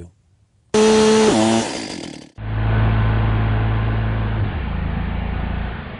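Gas chainsaw revving at full speed, its pitch falling and its sound dying away within about a second as the chaps' padding binds in the chain and jams it. Then an abrupt cut to a duller, lower-pitched take of a saw engine running, whose low note drops again near the end.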